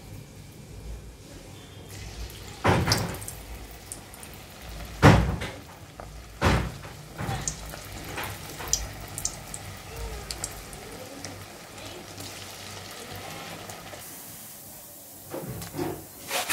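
Cabbage manchurian balls frying in hot oil in a kadhai, a steady sizzle and bubble. A few sharp knocks come about three, five and six and a half seconds in, and the sizzle grows brighter near the end.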